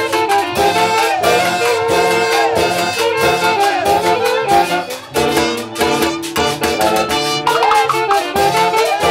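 An orchestra of trumpets and saxophones playing a lively dance tune over a steady percussion beat, the horn lines sliding up and down between notes.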